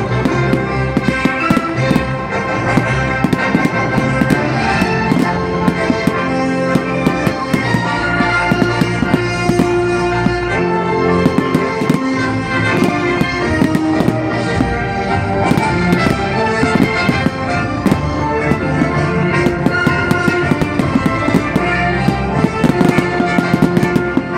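Fireworks going off in rapid, repeated bangs and crackles over loud music.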